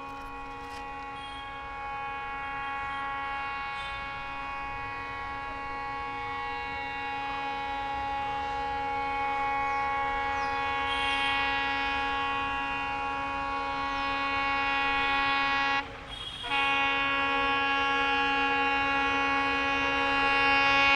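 Horn of an ALCo WDM 3A diesel locomotive blown continuously, one long sounding that grows steadily louder as the train approaches, with a single brief break about sixteen seconds in.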